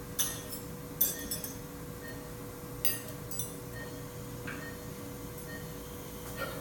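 Metal surgical instruments clinking against each other and the tray, several sharp clinks in the first three and a half seconds. Under them a steady hum and faint short beeps at a regular pace.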